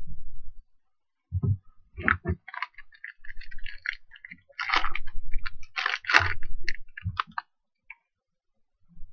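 Foil trading-card pack wrapper being torn open by hand, crinkling and crackling in irregular bursts, with a few low thumps of handling.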